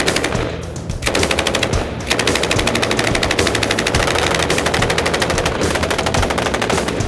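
Sustained rapid automatic gunfire, long bursts of fast, evenly spaced shots with a brief break under a second in and another about two seconds in.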